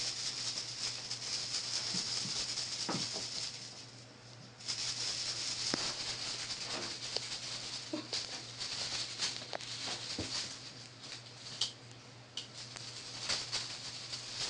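Crinkly plastic lure on a cat wand toy rustling as it is swung, pausing briefly about four seconds in, with kittens' paws and claws pattering on a tile floor.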